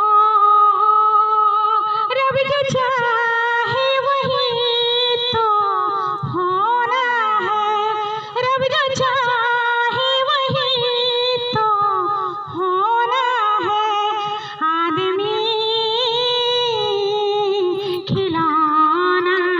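A woman singing unaccompanied, holding long notes with wavering, ornamented pitch.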